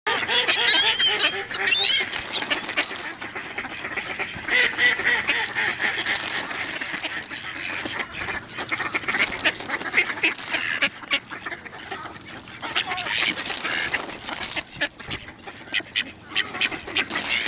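Mallard ducks quacking and calling, with many short sharp clicks and taps mixed in; loudest in the first two seconds.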